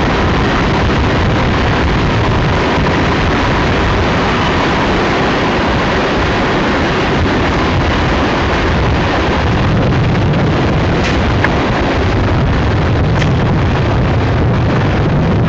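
Wind buffeting the camcorder microphone: a loud, steady rushing noise with gusty low rumbles that grow stronger after about ten seconds, mixed with the rumble of a distant passing empty coal train.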